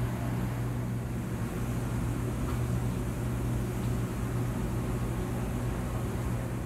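Steady low hum with a hiss over it, unchanging throughout.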